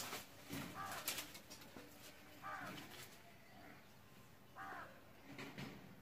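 A crow cawing, three calls about two seconds apart, with a few sharp clicks between them.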